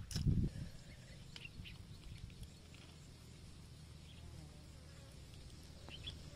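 Steady low buzzing of an insect, a fly or bee, hovering near the microphone, with a short bump at the very start.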